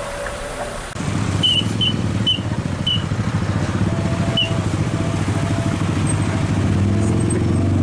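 Scania R580's V8 diesel engine running, with the 60-ton load of a dozer on its low-loader behind it: a deep, throbbing rumble that comes in abruptly about a second in and stays loud. Motorcycles run nearby, and there are five short high toots over the rumble.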